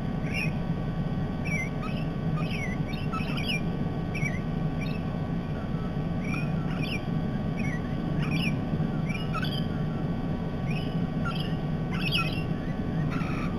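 Parrots calling in a rapid string of short, high chirps and squeaks, several a second, over a steady low hum.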